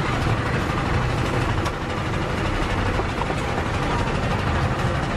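Hot oil sizzling steadily in a large wok as strips of pork deep-fry, over a steady low rumble.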